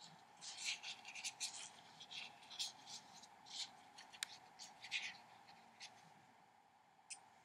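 Short, scratchy strokes of a colouring tool dabbing golden-yellow pigment onto watercolour paper, coming thick and fast for the first few seconds and then thinning out. A faint steady hum runs underneath.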